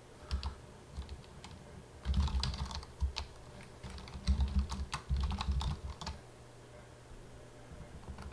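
Computer keyboard typing in short bursts of keystrokes, each press with a dull low thud, stopping about six seconds in.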